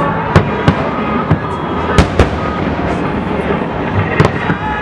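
Fireworks display: aerial shells bursting in an irregular string of sharp bangs, about seven in under five seconds, the loudest about two seconds in, over a continuous noisy rumble.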